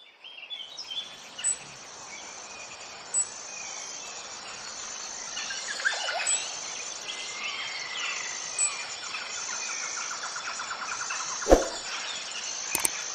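Birds chirping and calling over a steady, high insect drone. A single sharp knock, the loudest sound, comes about eleven and a half seconds in.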